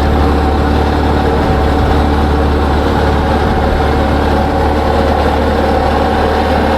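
Boat's outboard motor running at a steady speed with a low, even hum, the boat under way.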